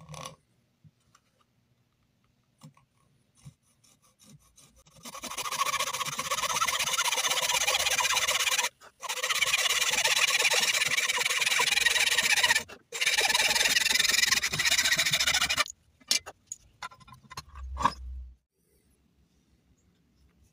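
A hacksaw cutting a thin workpiece clamped in a bench vise, in steady back-and-forth strokes. It starts about five seconds in, pauses briefly twice and stops about five seconds before the end. A few knocks follow as the work is handled.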